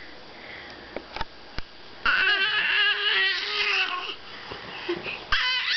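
Baby babbling: a long, wavering squeal about two seconds in, then a short rising squeal near the end, with two small taps before it.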